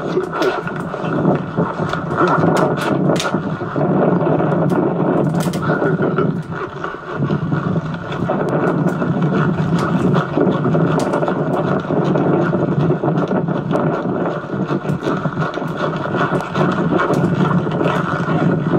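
Noisy camcorder audio from a horse being ridden, heard through a television speaker: a dense steady rumble with scattered sharp clicks, dipping briefly about six seconds in.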